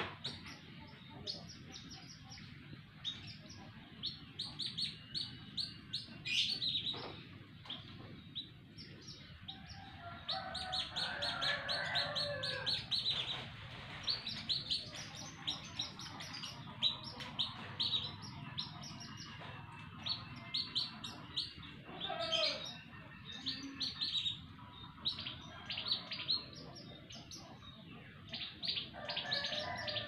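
Several caged domestic canaries singing at once: long rolling trills of rapid, repeated high notes, with lower warbling phrases mixed in.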